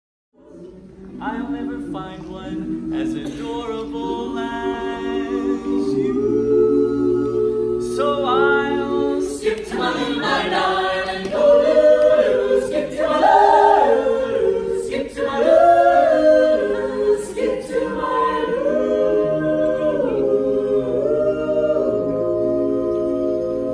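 A mixed a cappella vocal ensemble of men and women singing in close harmony, with held chords that move from note to note. It comes in after a brief gap about half a second in.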